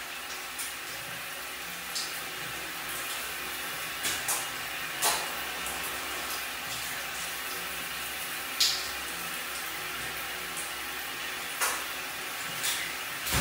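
Shower spray running steadily, with a handful of short sharp splashes.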